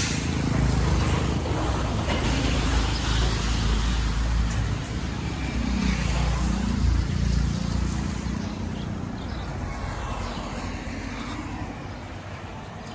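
Street traffic with a motor vehicle passing close: a steady engine rumble whose pitch dips and rises about six seconds in, then fades away over the last few seconds.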